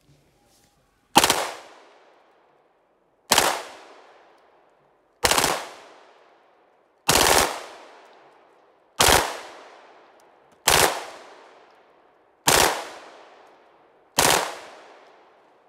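Semi-automatic pistol fired eight times, single shots about two seconds apart, each followed by a fading echo.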